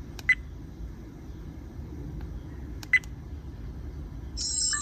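REDTIGER F7N dash cam beeping as its buttons are pressed: two short single beeps about two and a half seconds apart, then a brief multi-note electronic chime near the end, over a low steady hum.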